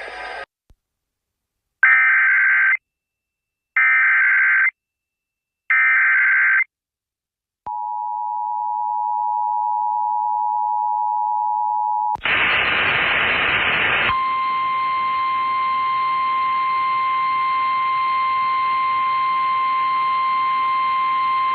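Emergency Alert System tone sequence: three one-second bursts of SAME header data screech, then the two-tone EAS attention signal for about four seconds. After that comes a burst of radio static, and then the steady single-tone NOAA Weather Radio warning alarm over radio hiss.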